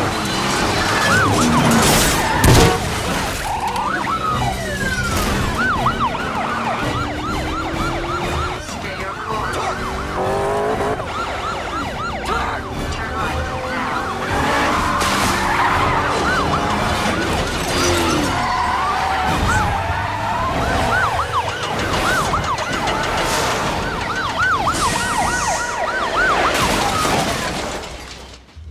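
Police car sirens yelping fast over car engines and road noise in a chase soundtrack, with a loud crash-like hit about two and a half seconds in. The sound drops away abruptly near the end.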